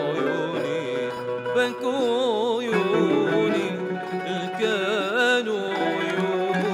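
A male voice singing an Arabic song in long ornamented phrases with wavering melismas, accompanied by plucked oud and qanun.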